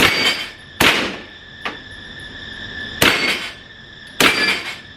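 Suppressed gunshots: four sharp reports fired at uneven intervals, with a fainter report in between.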